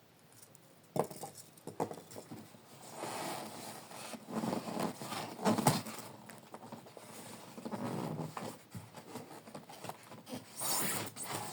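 Rustling and scraping of model airplane kit parts and their packaging being handled, with a few light knocks about a second in.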